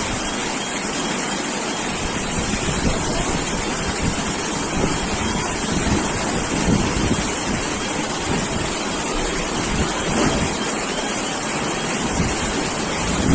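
Steady hiss of heavy cyclone rain with gusting wind, the gusts buffeting the microphone in irregular low rumbles.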